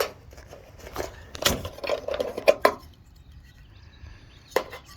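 Metal gutter hangers with their screws clinking and knocking together as they are handled, a run of light clicks in the first few seconds and one more near the end.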